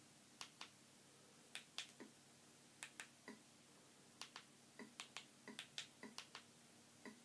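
Faint, sharp plastic clicks of remote-control buttons being pressed to step through an on-screen menu: about twenty clicks, irregularly spaced and often in quick pairs.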